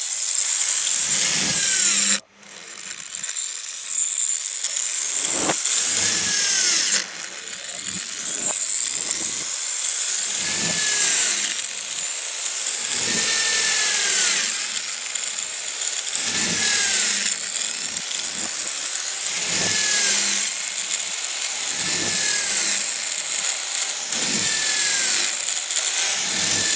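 Hand-held power drill boring holes through a plywood sheet, one after another. The motor runs at full speed through the wood, its pitch dipping and recovering with each hole, about every two and a half seconds. The drill stops briefly about two seconds in.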